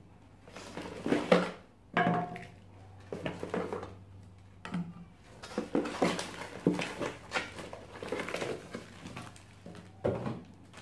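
Plastic breast pump bottles and flanges handled and set down on a carpet, making a series of short, irregular knocks and rattles.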